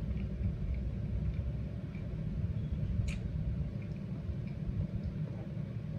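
Steady low background rumble, with a few faint small ticks and one brief click about three seconds in.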